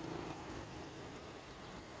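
Faint, steady outdoor background noise with no single sound standing out.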